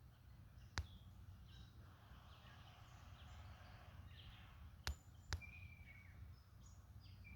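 Red-bellied woodpecker's bill striking wood while it excavates a nest hole: three sharp taps, one about a second in and two close together near the five-second mark. Faint songbird chirps and a low background rumble lie underneath.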